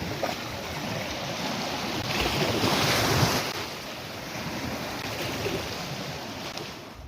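Sea waves washing onto a beach, one swelling louder and breaking about two to three seconds in, with wind buffeting the microphone.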